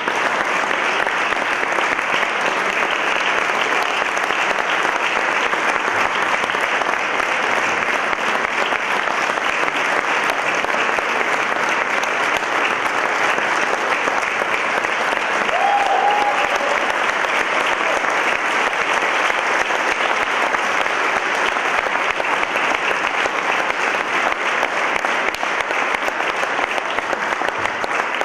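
Audience applauding steadily, the dense clapping of a full hall.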